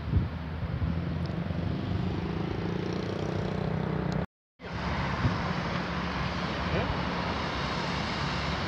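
Steady road-traffic and vehicle noise with a low rumble. It breaks off in a brief dropout about four seconds in.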